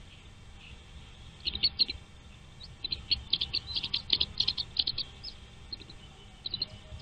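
Nestling birds chirping: a short burst of high chirps about a second and a half in, then a longer run of rapid chirps from about three to five seconds in.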